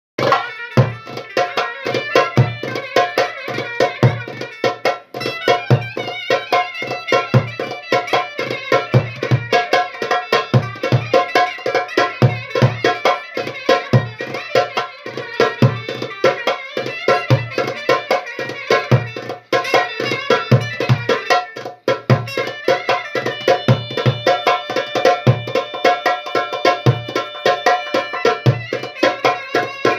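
Darbuka (goblet drum) playing a fast çiftetelli rhythm, deep low strokes among rapid high taps, with a melody instrument playing alongside.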